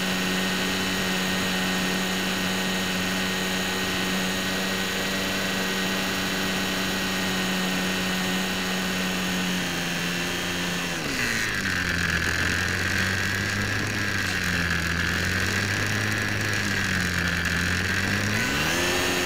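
Hobbyzone Champ RC plane's small electric motor and propeller whining steadily, heard from a camera on the plane, over a steady hiss. A little past halfway the pitch drops and wavers as the throttle is eased back, then climbs again near the end.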